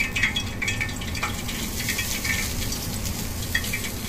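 Ponzu poured from a squeeze bottle onto deep-fried flounder still hot from the oil, sizzling with small crackles as the sauce hits the crust.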